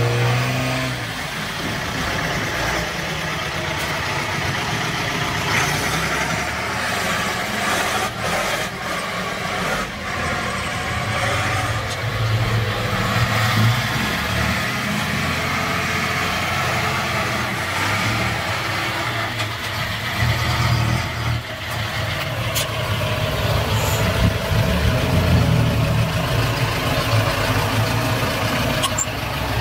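Diesel engines of a Ford 6600 tractor and a small dump truck running, swelling and easing off several times as the tractor pulls the truck out of loose soil.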